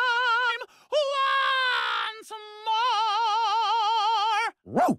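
Singing voices holding the closing notes of a Christmas song with a wide, even vibrato: a short held note, a note that slides down, then a long final note that stops sharply. A brief swooping sound, up and back down, follows just before the end.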